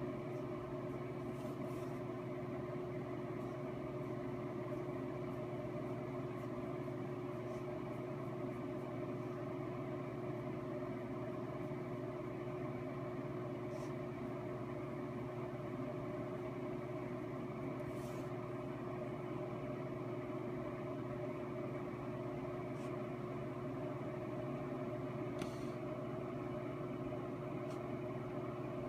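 Steady mechanical hum holding one constant pitch, with a few faint brief clicks.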